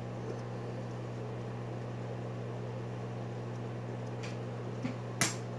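Steady low hum with a faint even hiss, with a few soft puffs and one sharp click near the end as a tobacco pipe is being lit.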